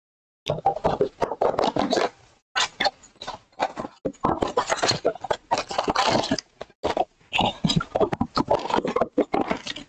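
Cardboard trading-card blaster boxes being torn open by hand: flaps ripping and the cardboard scraping and crackling in irregular bursts with short silent gaps.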